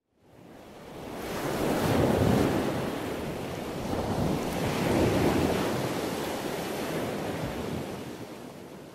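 Ocean waves washing in, used as a sound effect: a rushing surf noise that fades in, swells twice and then fades away.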